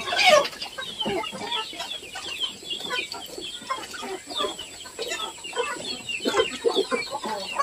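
A flock of young Indonesian kampung chickens clucking and calling over one another in a dense, continuous stream of short high calls, excited by freshly poured feed.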